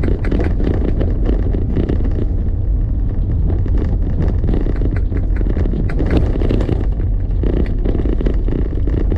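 A road vehicle on the move: a steady low rumble of engine and road noise.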